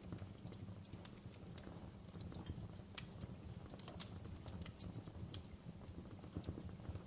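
Outdoor wood fire crackling, with irregular pops and snaps over a low, steady rumble; the sharpest pop comes about three seconds in.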